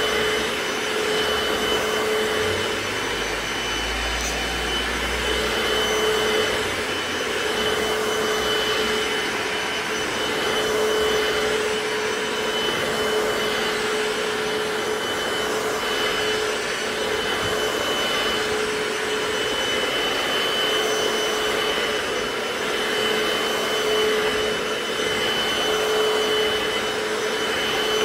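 Hoover FloorMate hard-floor cleaner running steadily. Its suction motor gives a constant hum with a high whine.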